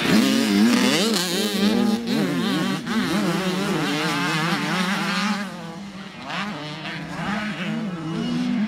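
Motocross dirt bike engines racing, the pitch climbing and falling as the riders work the throttle. The engine sound drops off about halfway through and builds again near the end.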